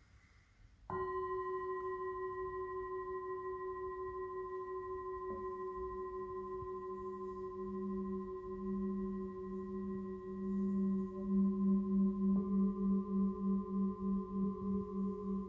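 Tibetan singing bowls struck one after another with a mallet: three strikes, about a second, five seconds and twelve seconds in, each bowl left ringing so the long tones overlap. The deepest tone swells and pulses in a steady wavering beat.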